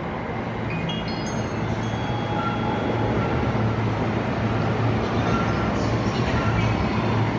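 Freight train running past on the rails: a steady, dense rumble of wheels and machinery that grows louder about two seconds in, with a few short high tones over it.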